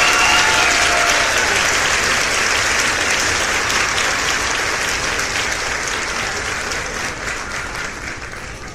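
Crowd applause, many hands clapping in a dense patter that slowly fades away.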